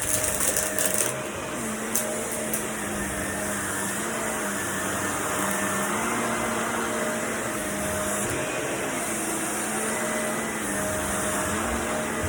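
Vacuum cleaner running steadily, its motor hum dipping and rising slightly every second or two, with a burst of rattling clicks in the first second.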